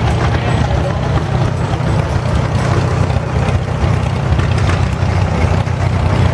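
Antique farm tractor engine running steadily close by, an even low hum with no change in speed.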